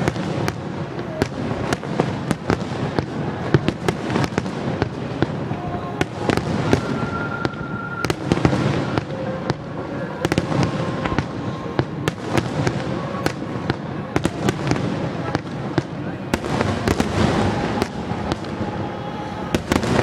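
Large aerial fireworks display: many shells bursting at once, a dense, continuous stream of sharp bangs and crackles.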